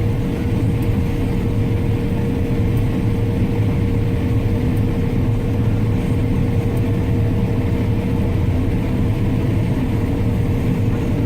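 Heavy harvest machinery's diesel engine running steadily under load, heard from inside the cab as a constant low drone with a steady whine above it.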